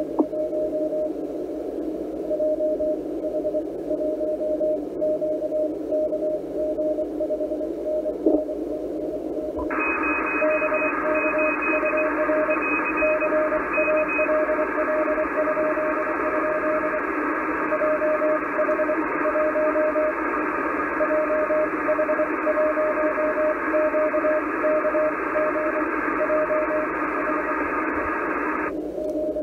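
ICOM IC-746 shortwave transceiver receiving Morse code: a keyed tone of dots and dashes over receiver hiss, heard muffled through the narrow 500 Hz CW filter. About ten seconds in, the wide filter is switched in and the hiss turns brighter, with a second, fainter, higher-pitched Morse signal briefly audible. Near the end the narrow filter is switched back in.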